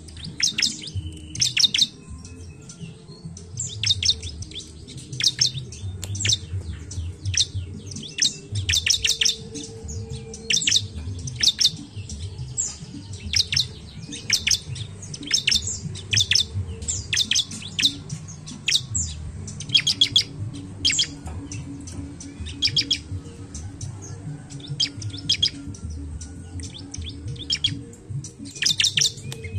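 Bar-winged prinia (ciblek) calling: short, sharp bursts of rapid high chattering notes, repeated about once a second, over a steady low rumble.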